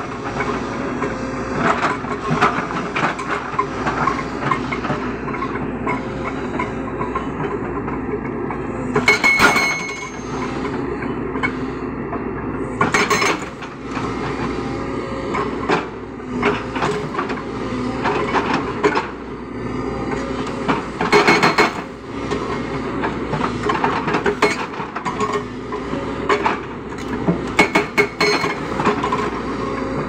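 Hydraulic rock breaker on a JCB 220 excavator hammering rock in continuous rapid blows over the excavator's running diesel engine. Several louder metallic clanks ring out now and then.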